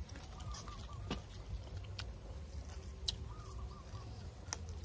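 Faint calls of distant farm fowl, two short runs of quick notes, over a low outdoor rumble. A few sharp clicks and snaps of fresh leafy greens being handled come about a second apart.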